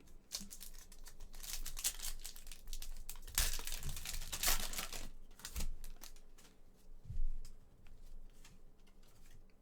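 Crinkling and tearing of a trading-card pack wrapper as cards are handled. The loudest rustling comes about three and a half to five seconds in.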